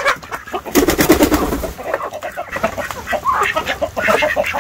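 A flock of chickens clucking and calling over one another, with ducks among them, and a brief low rumble about a second in.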